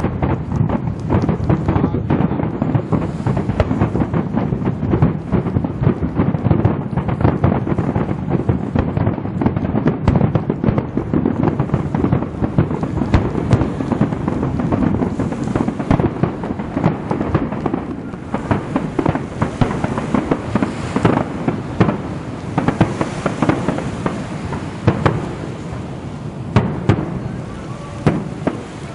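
Aerial fireworks shells bursting in a rapid, near-continuous barrage of bangs and crackles, with low rumbling echoes. After about two-thirds of the way the bangs thin out and grow quieter, with a few last single bangs near the end.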